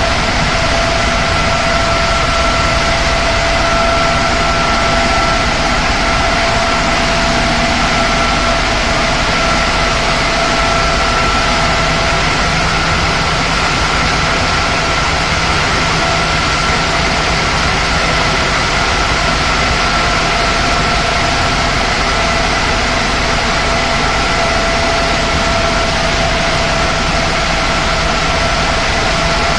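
Sand dewatering screen running, its two vibration motors shaking the wet sand deck: a loud, unbroken mechanical din with a steady whine over it.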